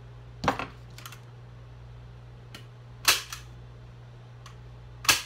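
Manual staple gun firing three times, about two and a half seconds apart, driving short T50 staples through the canvas into the wooden stretcher bar. Each sharp snap is followed by a fainter click.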